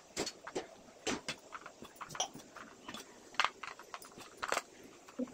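A metal spoon knocking and scraping against aluminium idli plates as batter is spooned into the moulds: a string of irregular light clinks and taps.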